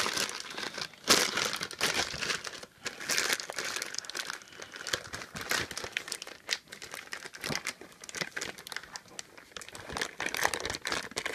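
Plastic packaging crinkling and rustling in irregular handfuls, with many small sharp crackles, as a new car stereo head unit is unwrapped by hand.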